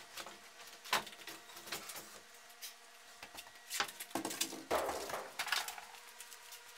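Footsteps on wooden stairs and a concrete floor while a sheet of 3/4-inch plywood is carried, the board bumping and scraping: scattered knocks, one sharp knock about a second in, and a run of knocks and scraping in the second half.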